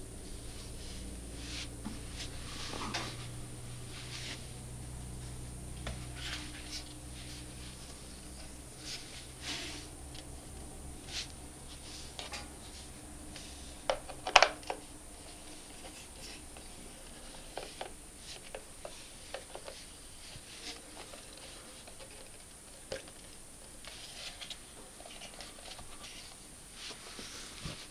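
Handling noise from a mini bendy tripod and a compact digital camera: scattered small clicks, rubs and taps as the tripod's mounting screw is turned into the camera's tripod socket and the camera is stood upright, with a cluster of sharper clicks about halfway through. A low hum fades out in the first third.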